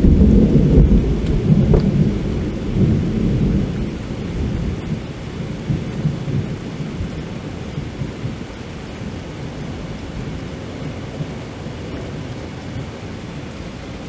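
Rolling thunder: a loud low rumble that dies away over the first several seconds. It leaves a steady hiss of rain.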